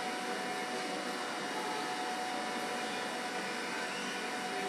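Quadcopter drone's motors and propellers whirring steadily: an even rushing hiss with a constant whine on top.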